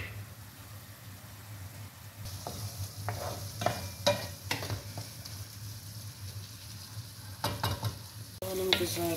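Diced onions frying and sizzling in a nonstick pan while a wooden spoon stirs them, scraping and knocking against the pan. The sizzle sets in about two seconds in.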